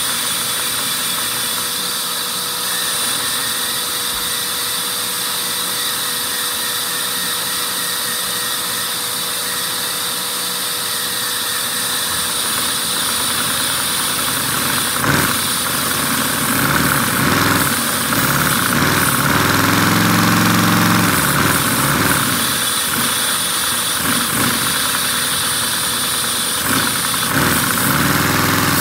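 LEGO inline-four vacuum engine running on suction from a vacuum cleaner hose: the steady rush and whine of the vacuum over the clatter of the LEGO pistons and valves, swelling louder for a few seconds past the middle.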